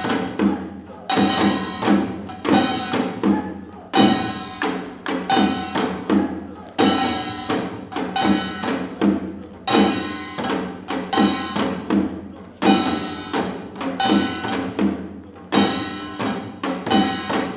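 Korean traditional percussion music for a talchum mask dance: sharp strikes that ring on, in a fast repeating rhythm with a strong accent about every second and a half and quicker strokes between.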